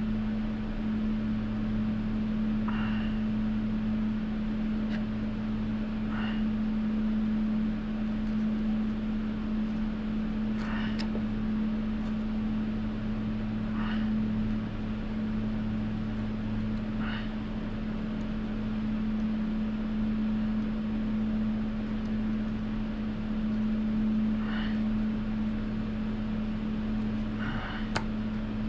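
A space heater running with a steady low hum, with faint brief handling sounds every few seconds.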